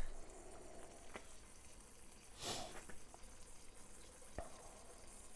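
Bacon rashers frying in a non-stick pan on a Trangia 25 methylated-spirits stove: a faint, steady sizzle, only just starting as the cold pan comes up to heat, with a few small pops and one louder spit about halfway through.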